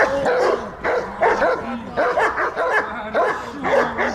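Dog barking and yelping in quick, loud, repeated calls, about three a second.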